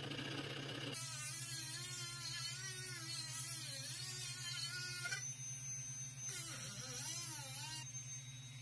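Handheld rotary tool grinding the edge of a speaker hole cut in a wooden panel, its pitch wavering as it bites into the wood. It comes in short stretches with abrupt breaks, about five seconds in and again near the end.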